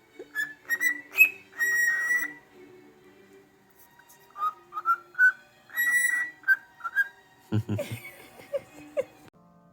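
A series of short, high whistled notes in two runs, then a brief, louder low noise about three-quarters of the way through.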